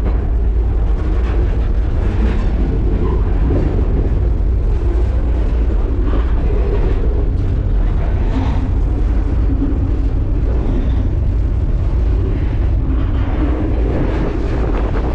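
Steady loud rumble of a moving freight train heard from aboard, with wind buffeting the microphone.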